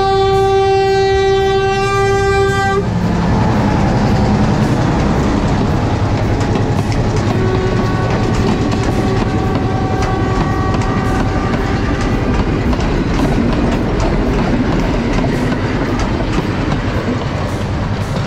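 Diesel passenger train sounding one long horn blast for about the first three seconds as it approaches, then rumbling past close by, its wheels clattering rhythmically over the rail joints.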